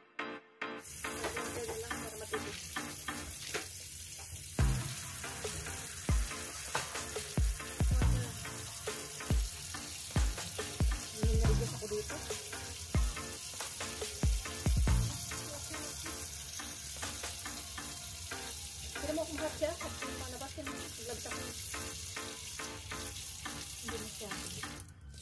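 Thin stream of hot water splashing steadily into a sink onto a live king crab, starting about a second in. Irregular dull thumps, about a dozen, punctuate the first half.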